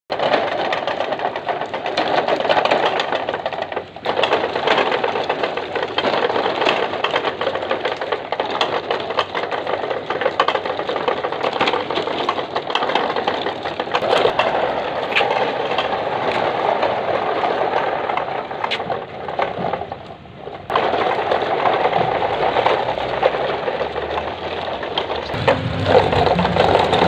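Plastic toy dump trucks rolling over concrete and gravel, their plastic wheels and bodies giving a continuous crunching rattle full of small clicks. The sound breaks off briefly about four seconds in and again near twenty seconds in.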